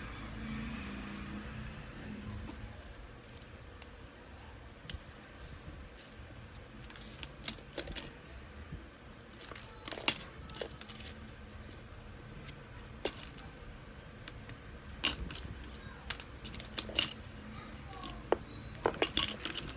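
Small plastic building bricks clicking and clattering as hands sort through a pile of loose pieces on a wooden tabletop: scattered sharp clicks that come more often in the second half.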